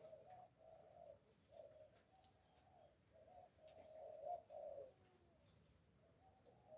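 Backyard hens murmuring: soft, low clucking in short warbled phrases, one after another with brief gaps, faint throughout.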